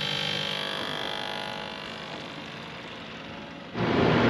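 A steady mechanical hum made of several steady tones, slowly fading. Near the end it switches abruptly to much louder rushing noise over a low steady drone.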